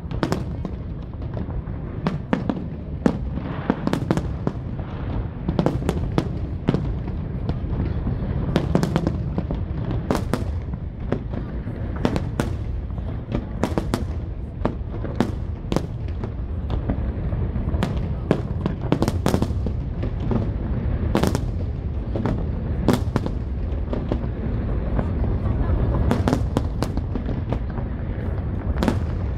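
Fireworks display: a steady stream of sharp cracks and pops from bursting shells, often several a second, over a continuous low rumble of booms.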